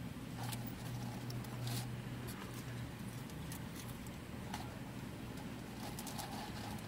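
Eating sounds: chewing and the crinkle of a paper burger wrapper and fry carton as fries are picked out, heard as scattered short crackles over a steady low hum.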